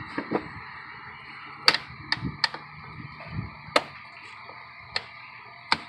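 About half a dozen sharp clicks and knocks at irregular intervals over a faint steady hiss: engine-bay parts being handled and fitted back into place by hand.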